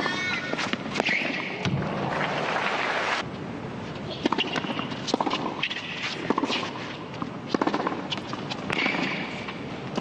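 Tennis ball struck back and forth with racquets in a rally, sharp pops about a second apart. They are framed by crowd applause early on that cuts off abruptly about three seconds in, and a short burst of crowd noise near the end.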